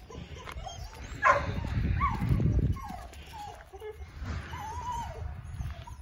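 German Shorthaired Pointer puppy whining and yipping in short high cries, with one longer wavering whine a little past the middle. A loud low rumbling noise runs through about the first half.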